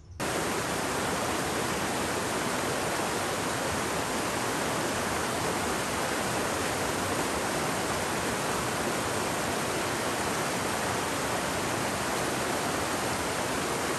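Steady, loud rush of falling water from a waterfall or fast mountain stream, cutting in suddenly and holding unchanged.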